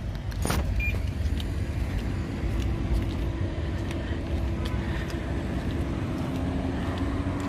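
Steady low rumble of a motor vehicle running, with a faint steady hum that enters about two seconds in and dips slightly in pitch near the end. A few faint light taps.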